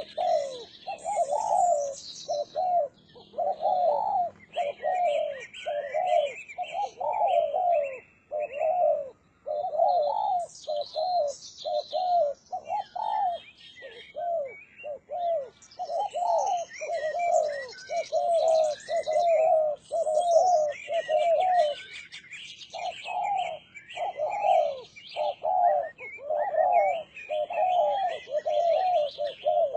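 Spotted dove (derkuku) cooing in long runs of repeated low notes, with brief pauses. Higher, thinner chirps of other small birds sound over it.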